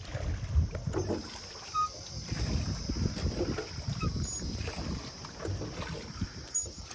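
Water lapping and sloshing around a small boat on a lake, with wind buffeting the microphone in an uneven low rumble.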